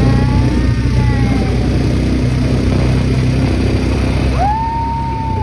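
ATV engine running steadily. A high held tone rises in about a second before the end.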